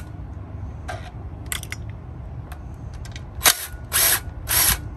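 Cordless impact driver backing out the screws on an outboard's water-pump housing, in several short rattling bursts, the last three close together near the end.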